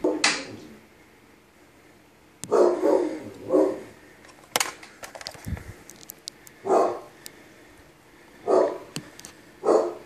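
A dog barking: several short barks spaced a second or two apart, with a few sharp clicks between them.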